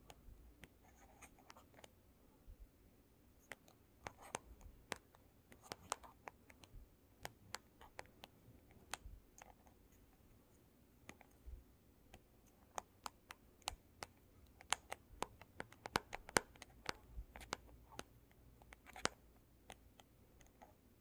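Long fingernails tapping and scratching on a hard, glossy black surface: irregular sharp clicks of the nail tips, with a few short scraping strokes between them. The taps are sparse at first and come much faster and closer together in the second half.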